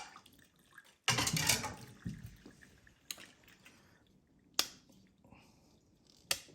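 AA batteries being worked out of a plastic battery holder: a rustling scrape lasting about a second, starting about a second in, then three sharp clicks a second or two apart.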